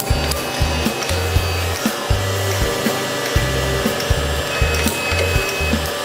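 Background music with a steady beat, about two a second, and a stepping bass line, over the noise of a sawmill saw cutting wood.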